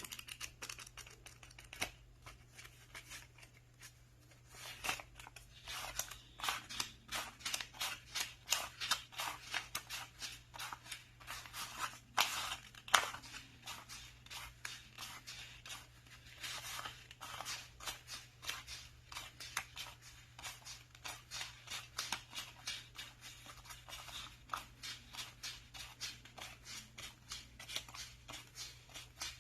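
Paper banknotes being counted by hand: a quick run of crisp flicks and rustles, several a second, with a few sharper snaps about halfway through.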